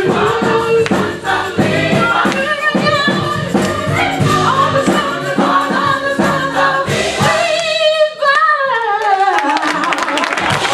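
Gospel choir singing over a steady beat, closing with a long falling vocal run about eight seconds in; applause starts near the end.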